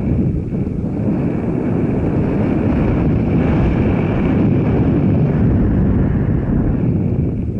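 Steady, loud rumble of a vehicle on the move, with wind buffeting the microphone.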